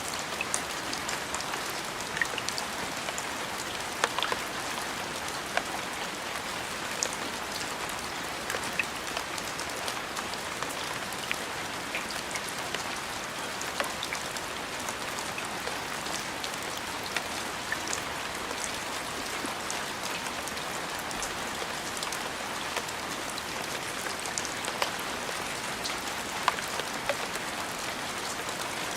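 Steady rain falling on a surface, an even hiss with scattered louder individual drops landing at irregular moments.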